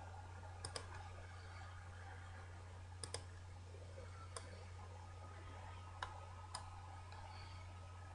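Computer mouse clicking about seven times, twice in quick pairs, over a low steady electrical hum.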